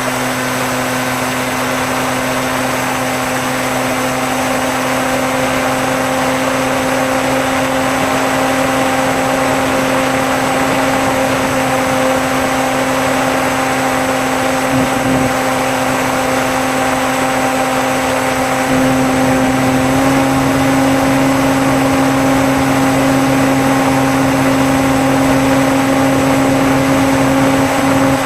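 Electric motor and pusher propeller of a Bixler RC plane droning steadily in flight. The pitch dips briefly about halfway through, then steps up slightly a few seconds later as the throttle changes.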